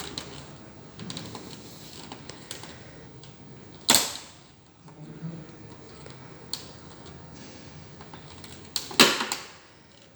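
Plastic back casing of an HP 200 G3 all-in-one PC being pressed home at its corners, its clips snapping into place. There are two loud, sharp snaps about four and nine seconds in, with smaller clicks and creaks of the plastic between them.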